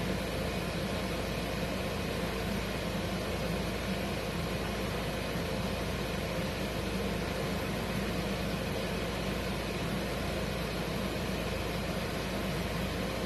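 Steady hiss with a low, continuous hum, unchanging throughout, with no distinct knocks or footfalls standing out.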